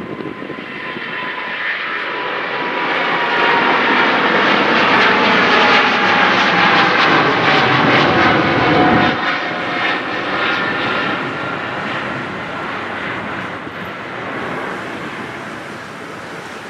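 Boeing 777-200ER twin-engine jet at takeoff thrust passing by. The sound swells to a peak about halfway through, with an engine whine that falls slowly in pitch as it goes past. The deep rumble then drops away and the sound fades.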